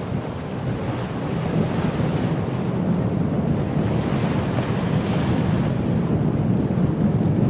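Wind buffeting the microphone over open sea: a steady low rumble with the wash of waves, slowly growing louder.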